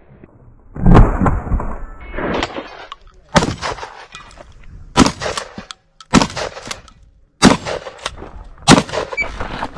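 Gunshots at a steel-target range, a rifle and then a pistol: about six separate shots a second or more apart, each a sharp crack with a short echo.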